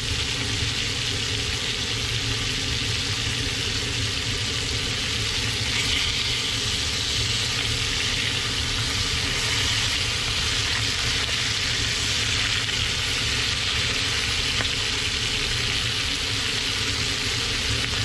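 Thick cobia fillets sizzling steadily in a hot frying pan as they cook blackened, over a steady low hum.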